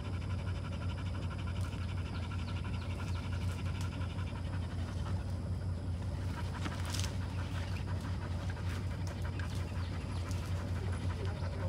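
A dog panting rapidly and steadily close to the microphone, out of breath from running and baying.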